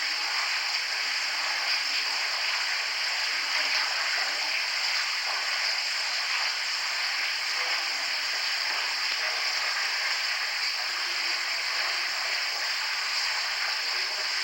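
Steady hiss, even in level throughout, with faint indistinct low sounds now and then underneath.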